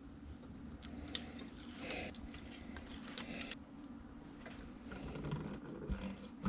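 Faint clicks and scrapes of a utility knife trimming adhesive tape strip, followed by light knocks as a small metal-cased inverter is handled and set down on top of a battery.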